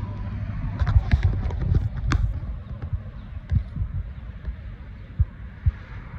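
Irregular low thumps with a few sharp clicks in the first two seconds, then a handful of single soft thumps: handling and footstep noise on a phone's microphone as it is carried.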